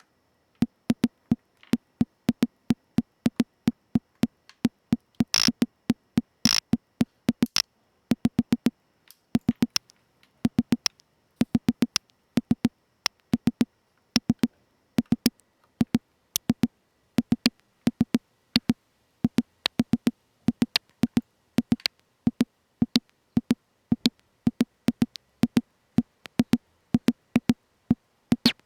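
Lorre-Mill Double Knot V2 synthesizer playing a sequenced pattern of short, low percussive blips, about three to four a second in uneven groups. Two brighter, hissier hits come about five and a half and six and a half seconds in.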